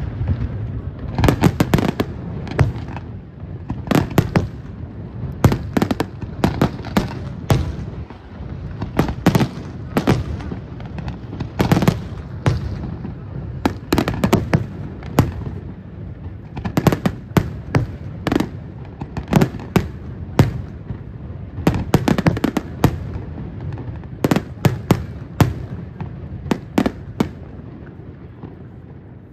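Aerial firework shells bursting overhead in a display: many sharp bangs in irregular succession, often several in quick clusters, with hardly a pause between them.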